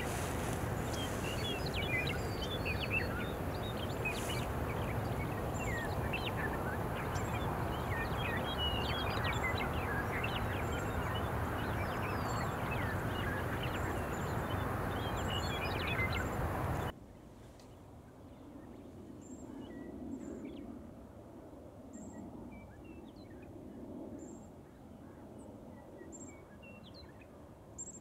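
Many small birds chirping and calling over a steady background of outdoor noise. About two-thirds of the way through the background drops away abruptly, leaving fewer, fainter chirps.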